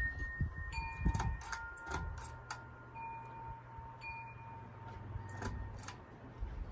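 Wind chimes ringing, struck lightly and irregularly, several tones of different pitch overlapping and sustaining. A low steady hum sits underneath for several seconds in the middle.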